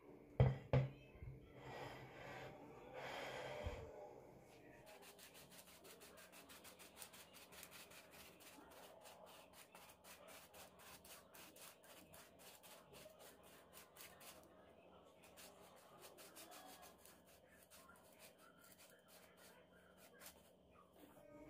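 A couple of soft knocks at the start, then powdered sugar being sifted over a plate of cookies: a faint, fast, even tapping and rustle, about five taps a second, that stops just before the end.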